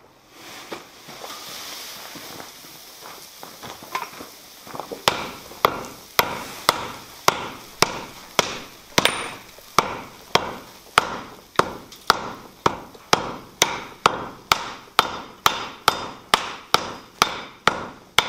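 Hand hammer striking a red-hot cast-iron anvil body on a steel anvil, forge-welding blows. After a few seconds of quieter scraping and light taps, a steady run of sharp strikes begins, just under two a second, each ringing briefly.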